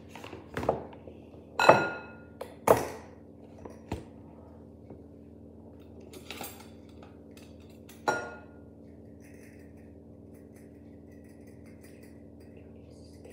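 Glass jar clinking: several sharp knocks, each with a brief ringing note, the loudest around two and three seconds in and again about eight seconds in, while caster sugar is handled and poured from it.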